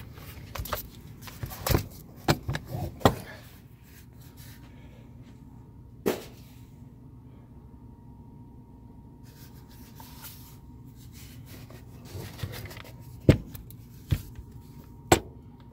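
Handling noise: scattered clicks and knocks, a cluster in the first three seconds, one about six seconds in and a few more near the end, over a faint steady hum.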